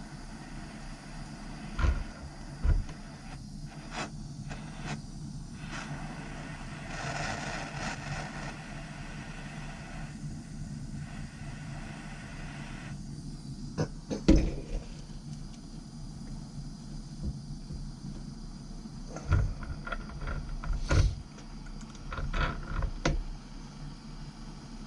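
Steady low rumble of a torch flame heating the faucet's diffuser fitting for soldering. Several sharp knocks and clinks of metal parts being handled come through it, the loudest about two seconds in, about fourteen seconds in and around twenty seconds in.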